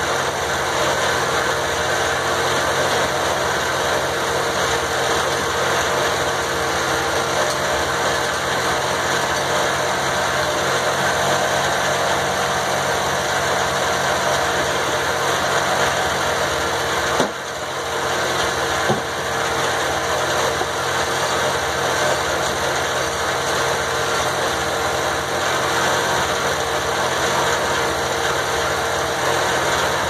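Engine-driven circular sawmill running steadily with its large blade spinning free, not cutting. Two sharp clicks come about seventeen and nineteen seconds in.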